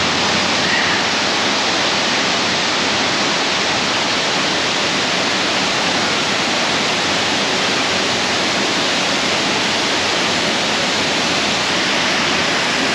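Large waterfall pouring close by, a steady, loud rush of falling water.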